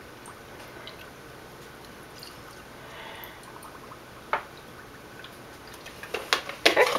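Almond milk poured from a carton into a glass mason jar of oats, a soft liquid pour. A sharp tap comes about four seconds in, and a few light knocks near the end as the carton is handled.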